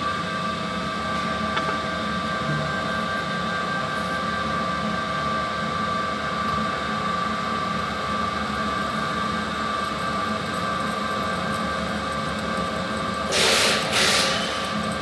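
Drill press running steadily, its bit cutting into a steel flat bar, with a steady motor whine. Near the end there are two short, louder harsh bursts.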